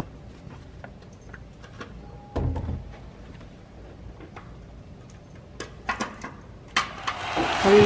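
Scattered small clicks and knocks of keys and the door being handled in the dark, with a dull thump about two and a half seconds in and a loud rustle near the end.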